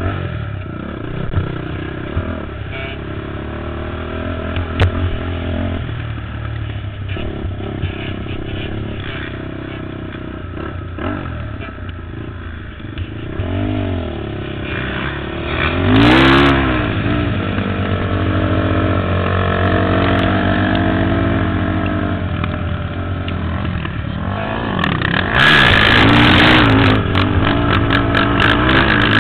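Sport ATV engine revving up and down under throttle, its pitch rising and falling with each throttle change. It comes briefly louder about 16 seconds in, and louder again from about 25 seconds in.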